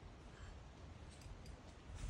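Near silence: a faint low rumble with a few faint clicks about a second and a half in.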